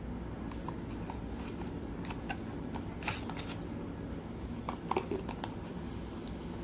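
Scattered light clicks and rustles of a small cable box and its packaging being handled as the cable is taken out, with a short cluster of clicks about five seconds in.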